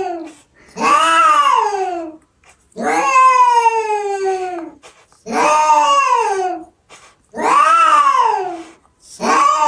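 Domestic cat yowling: a run of long, drawn-out caterwauls, each about a second and a half, rising then falling in pitch, with short pauses between; about five in a row, the last starting near the end.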